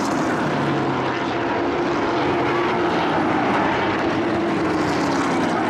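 Racing pickup trucks' engines running at speed on the oval, a steady drone whose pitch glides slowly down and up as the trucks go around the track.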